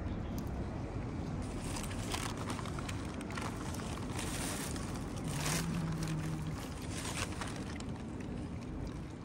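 Steady low rumble of wind on the microphone, with a few short scratchy noises from about two seconds in and a brief low hum about five and a half seconds in.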